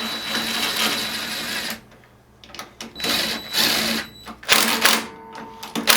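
Ratchet running the spark plug back into a small snow blower engine: two runs of rapid mechanical whirring of about two seconds each, then a few separate clicks as the plug is snugged down.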